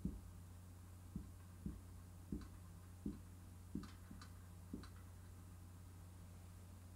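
A man's quiet, suppressed laughter: a string of soft, low breathy puffs over the first five seconds, with a few light clicks from a whiteboard marker being handled near the middle, all over a steady electrical hum.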